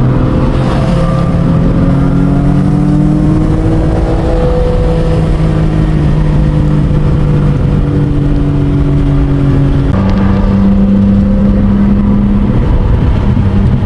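Race car engine running loud at fairly steady revs, its note drifting slowly, then stepping up to a higher steady note about ten seconds in.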